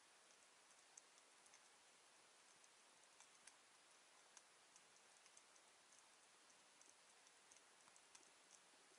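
Near silence underwater, with a faint, irregular crackle of sharp ticks: the reef crackle typical of snapping shrimp.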